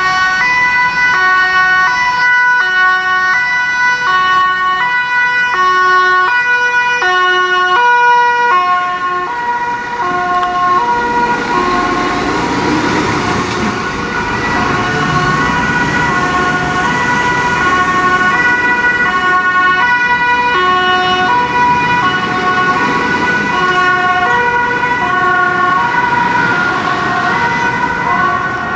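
Fire engine's German two-tone siren (Martinshorn), switching back and forth between two pitches, each held just over half a second. Traffic noise rises underneath and partly blurs the pattern in the middle, then the clear alternation returns.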